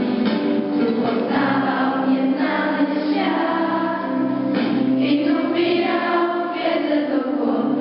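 A group of schoolchildren singing together in chorus, a steady continuous song.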